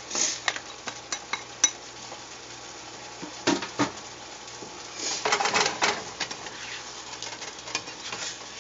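A plastic spatula knocks and scrapes against a pan as asparagus is stirred in simmering garlic sauce. There are scattered taps and a longer run of scraping about five seconds in, over a low sizzle.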